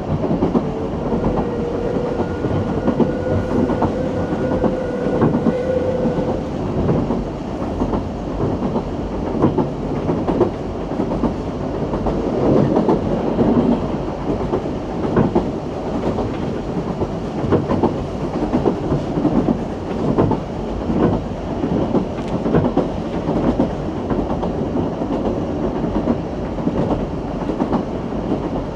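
Narrow-gauge heritage train on the Isle of Man Steam Railway running along the track: a continuous rumble with wheels clicking over the rail joints. A steady tone sounds for about five seconds near the start.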